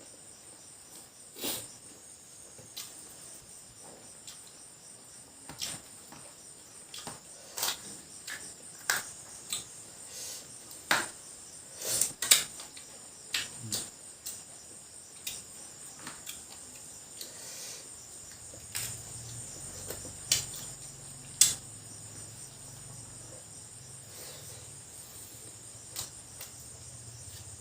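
Crickets chirring steadily, with scattered sharp cracks and clicks of crab being eaten, shell cracked and chewed.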